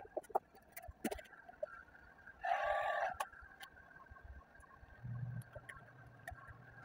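Hand work on vinyl wrap film at a truck's inner door panel: scattered light taps and crinkles, and a short noisy burst about two and a half seconds in.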